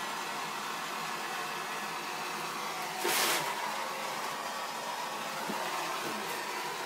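Blow torch flame hissing steadily while heating a copper pipe fitting for soldering, with a brief louder rush about three seconds in.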